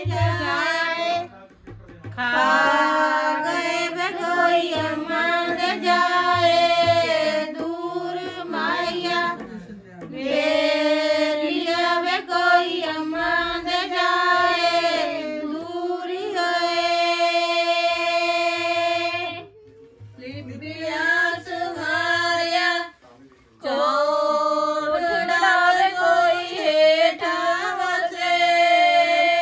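Women singing a Punjabi suhaag, a traditional wedding folk song, together in long phrases with held notes and short breaks between them.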